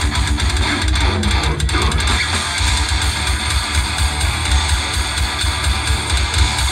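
Extreme-metal band playing live and loud: distorted electric guitar, bass guitar and drums in a dense, unbroken wall of sound.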